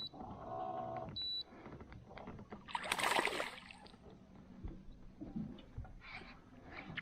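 Water splashing against a small boat, loudest about three seconds in, with a short high electronic beep about a second in.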